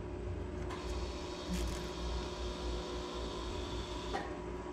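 Hydraulic brake booster's electric accumulator pump motor running for about three and a half seconds, a steady whirring hiss that starts with a click a little under a second in and cuts off near the end. It is recharging pressure while the brakes are bled with the pedal pumped.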